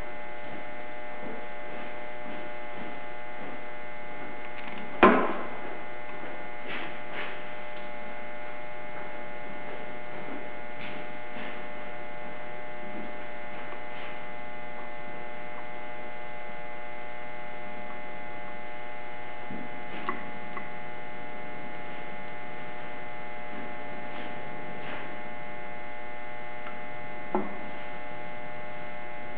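Steady electrical hum throughout, with scattered small metal clicks and clinks as bolts are fitted and driven with a screwdriver into a cover plate on a cast-iron Bridgeport back gear housing. One sharper knock comes about five seconds in, and another near the end.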